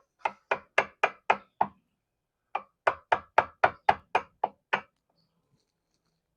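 Hammer blows struck in quick succession, about four a second: six blows, a pause of about a second, then nine more, fitting door hardware into a wooden door.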